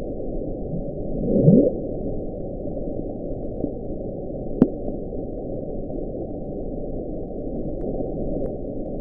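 Hydrophone recording of the 1997 underwater sound known as the Bloop, played back sped up: a steady hiss with a rising sweep about a second and a half in, and a single sharp click a little past the middle.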